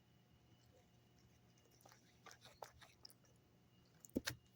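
Near silence, broken by faint small mouth clicks and smacks of someone tasting a sip of beer, with a sharper pair of clicks near the end.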